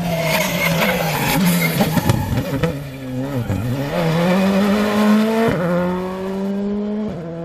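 Rally car engine slowing for a corner, its note dipping and wavering, then accelerating hard, the revs climbing with two quick upshifts about a second and a half apart.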